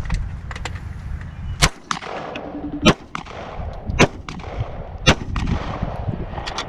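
Four loud gunshots from a firearm at a shooting range, fired one at a time about a second apart. A few fainter shots come near the start.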